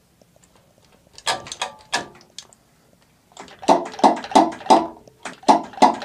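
Hand fuel-priming lever on the Bosch injection pump of a six-cylinder Baudouin diesel being worked back and forth to prime the engine with fuel before starting. A few strokes come after a quiet first second, then a steady run of squeaky clacking strokes about three a second from halfway in.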